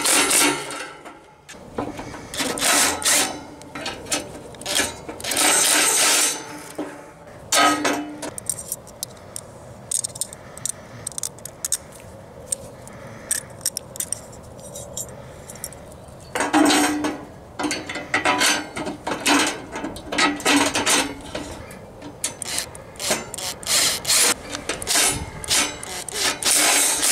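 Metal scraping and rattling on a steel charcoal grill as coiled-spring heat-diffuser grips and their bolts are fitted to the handles. It comes in bursts of one to a few seconds, with a quieter stretch in the middle.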